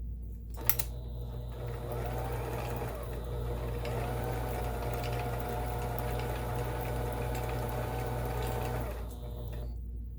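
Kenmore 17922 electronic sewing machine stitching a decorative triangle-pattern stitch, freshly cleaned and oiled. A click is followed by the motor starting up. It runs for about eight seconds, easing off briefly about three seconds in, then holds a steady speed before stopping near the end.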